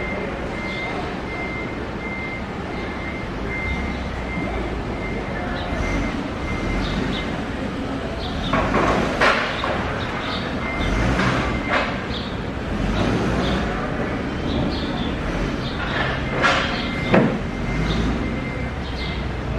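A vehicle running with its reversing beeper sounding about twice a second for the first several seconds. Then several loud knocks and clatters come in a few groups.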